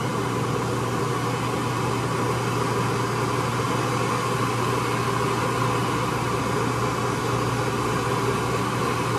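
Steady hiss of a MAP gas torch flame over a steady hum from a Hardinge collet lathe turning on low speed. The torch is heating a shrink-fit tool holder to expand it and release the endmill.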